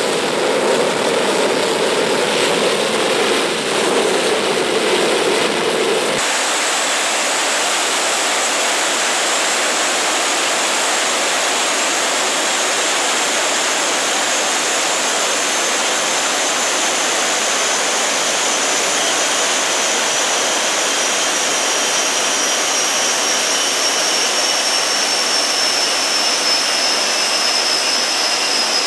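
Orenda OTF-3 industrial gas turbine running on a test stand: a loud, steady rush of turbine noise. About six seconds in the sound changes abruptly, and a high compressor whine comes in and slowly falls in pitch.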